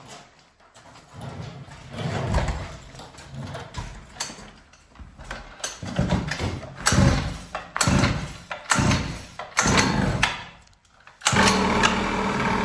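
Cheap Chinese two-stroke pocket bike engine being started, with a series of separate start attempts about a second long each, then a longer steady run near the end as it begins to fire.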